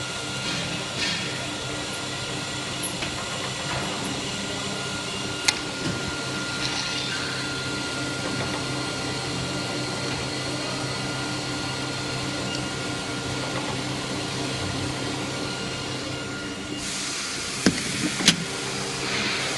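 Steady mechanical hum of an automated filling and capping line for small bottles running, with a few sharp clicks: one about five seconds in and two close together near the end.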